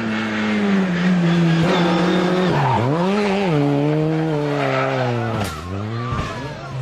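Peugeot 106 rally car's engine revving hard on a stage, the revs dropping sharply and climbing back twice, with tyres squealing through the bend. A brief sharp noise comes about five and a half seconds in.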